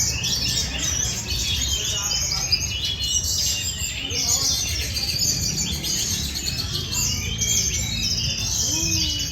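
Many songbirds singing at once: a dense, unbroken chorus of high chirps and trills over a low murmur of background noise.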